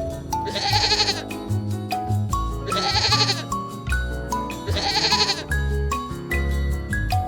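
An animal bleating three times, each bleat under a second and about two seconds apart, over background music with a stepping melody.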